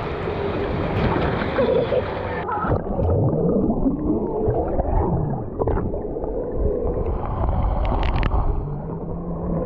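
Muffled underwater sound from a camera submerged in a swimming pool: gurgling, bubbling water with wavering, sliding tones, dull and cut off at the top.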